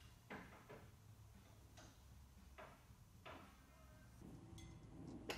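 Near silence with faint, irregular clicks and taps, about six of them, the sharpest one near the end. A faint low hum comes in about four seconds in.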